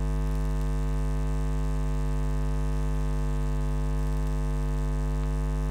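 Loud, steady electrical mains hum with a buzzy stack of overtones and a faint hiss, picked up by the recording.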